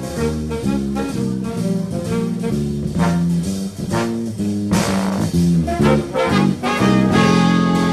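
Live big band playing swing jazz: brass and saxophones over a stepping electric bass line.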